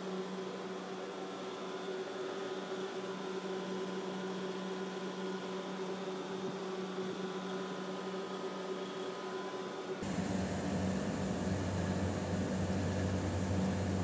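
Steady mechanical hum of a Carrier 30GT chiller unit's running machinery, with a steady tone in it. About ten seconds in it changes suddenly to a louder, deeper hum.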